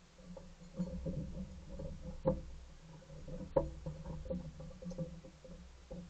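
Fox squirrel scrabbling and rummaging through seed and shells on a deck railing: irregular scratching and light knocks, with two sharper knocks a little over two seconds in and again about three and a half seconds in.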